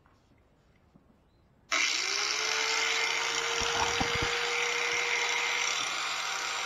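A corded electric angle grinder is switched on just under two seconds in. Its motor whine rises quickly to a steady pitch as it spins up and runs free, not yet touching the lawn mower blade. A few low knocks from handling come about midway.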